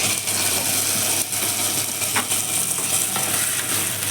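Cashews, raisins and cardamom sizzling in hot ghee and oil in a pan for tempering, a steady hiss, with a spoon stirring and knocking against the pan a couple of times.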